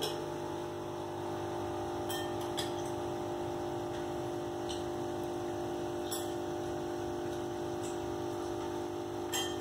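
Aquarium equipment humming steadily, with a few faint, short clicks scattered through.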